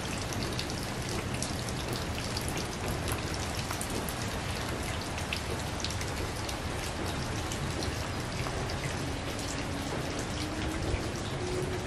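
Steady tropical rain falling on garden leaves, grass and paving, with many separate drop hits ticking through the hiss.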